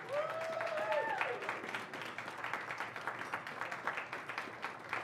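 Audience applauding, many hands clapping together, with a voice calling out over it in the first second or so.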